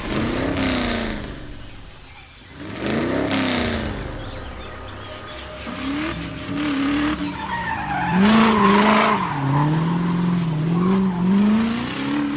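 Cartoon car sound effects: an engine revving with its pitch rising and falling over several passes, mixed with tyre screeches and rushes of noise.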